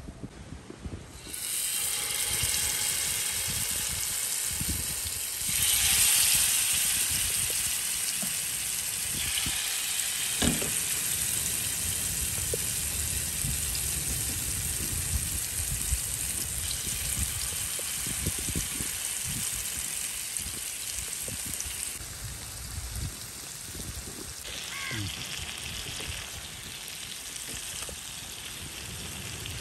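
Masala-coated ribbon fish pieces sizzling in hot coconut oil in a wide frying pan as they are laid in. The sizzle starts about a second in, grows louder a few seconds later and keeps going steadily.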